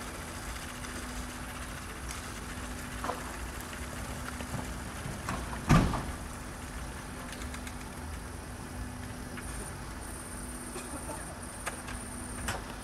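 A steady engine hum with a constant low tone, an engine idling. It carries scattered light clicks and rattles and one loud thump about six seconds in. A thin high whine joins in the last few seconds.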